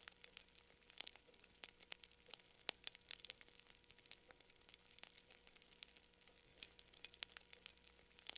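Near silence broken by faint, irregular crackling clicks, several a second, over a very faint steady hum.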